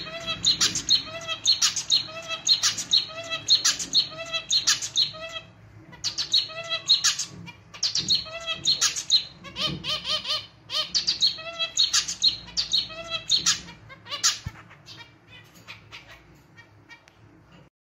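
Male zebra finch singing a rhythmic song of repeated notes that sound like a small, somewhat out-of-tune clarinet. The notes come in phrases with a short break about five seconds in, then fade and stop near the end.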